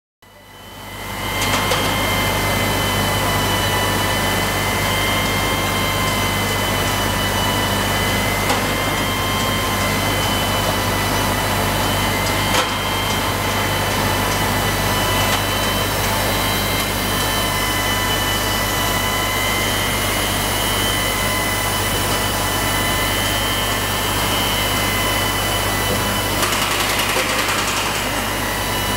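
Portable on-site valve-seat grinding machines running steadily on power-plant valves: a constant machine noise with a steady whine over a low hum, fading in over the first second or so.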